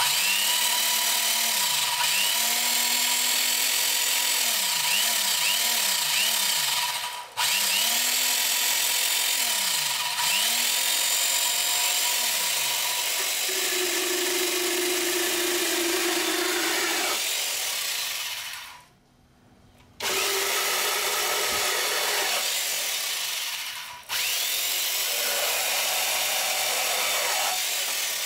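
An SDK electric chainsaw's motor runs at full speed with its chain sawing through a wooden board. A little past halfway the motor winds down and stops, then starts up again.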